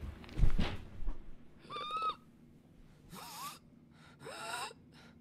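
A dull thump near the start, then three short, high-pitched, wheezy gasping whimpers from a person, about a second apart, their pitch wavering up and down.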